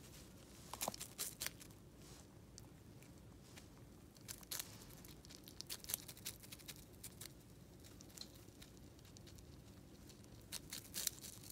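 Richardson's ground squirrel nibbling a raw broccoli floret: faint, quick crisp crunching clicks that come in irregular flurries, the busiest near the end.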